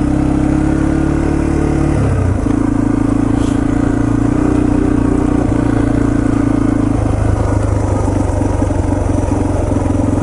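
Yamaha TT-R230's single-cylinder four-stroke engine running steadily on a trail ride, its note shifting about two seconds in and again about seven seconds in.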